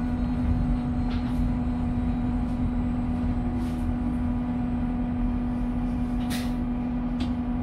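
Mercedes-Benz eCitaro electric bus heard from inside while under way: a steady whine from the electric drive holds one pitch over a low road rumble. A few brief rattles break in, the loudest about six seconds in.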